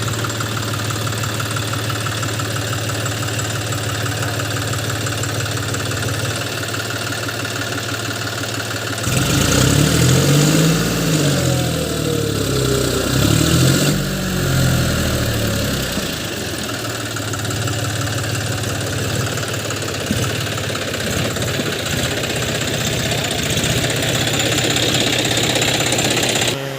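John Deere tractor's diesel engine idling steadily, revved up and back down twice near the middle, then settling back to idle.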